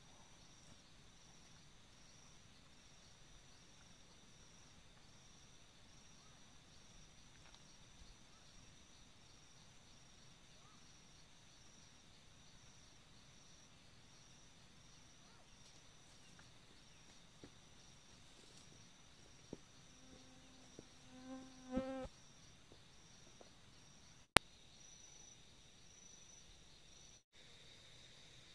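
Faint insect chorus: a steady high chirping that pulses about twice a second over a constant high tone. About three-quarters of the way in comes a brief low call that rises at its end, then a single sharp click.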